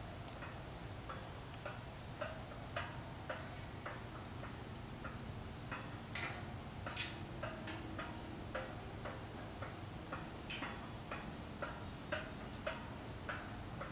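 Steady mechanical ticking, about two clicks a second, from a metal prayer wheel being turned round by hand.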